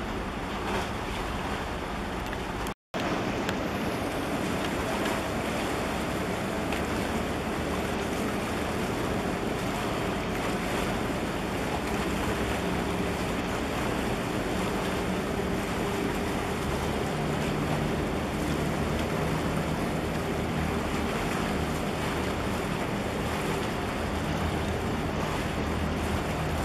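Wind buffeting the microphone over water washing against a breakwater, with a steady low rumble underneath. The sound cuts out completely for a moment about three seconds in.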